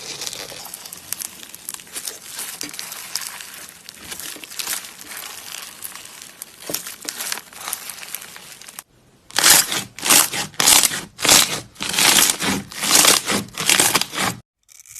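Dense, crisp crackling and crinkling of a crunchy material being pressed and worked. After a cut about nine seconds in come about ten louder separate crunches, roughly two a second.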